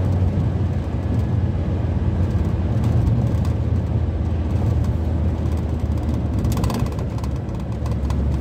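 VW T4 van driving at a steady speed, heard from inside the cab: a low engine drone mixed with road and tyre noise.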